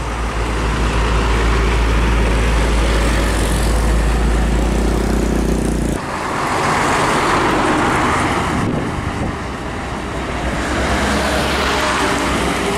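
Heavy diesel trucks driving past close by on a highway, engine drone and tyre noise swelling and fading as each one goes by. The sound changes abruptly about halfway through.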